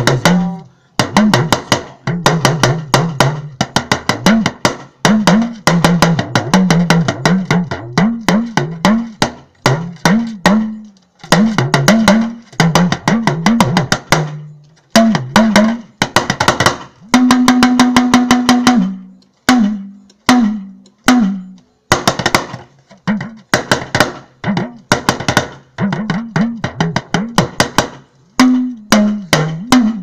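Hourglass talking drum struck with a curved stick in fast rhythmic phrases, the pitch of the notes bending up and down as the cords are squeezed under the arm. The phrases break off every second or two with short pauses, and around the middle a held higher note is struck as a rapid roll.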